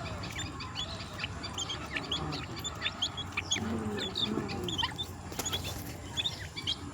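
Grey francolin (titar) chicks peeping: many short, high chirps in quick succession while they feed on termites, with a few lower clucking calls around the middle.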